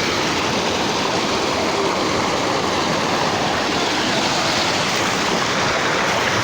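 Kallar river water rushing over rocks, a loud, steady rush.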